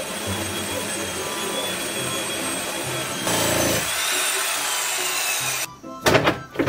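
Corded handheld power tool cutting into an old wooden sill beam. It runs steadily, grows louder about halfway through, then stops abruptly near the end. Two sharp knocks follow.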